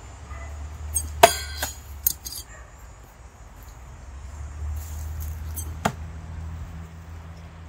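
Steel throwing knives making a quick cluster of sharp metallic clinks and knocks about a second in, one of them ringing briefly, then one more sharp click near six seconds in.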